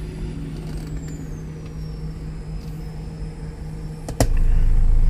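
Steady low hum in a truck cabin, then about four seconds in a sharp click as a car-audio subwoofer system starts a 27 Hz test tone ('burp') for an SPL measurement. The tone is much louder than the hum and very deep.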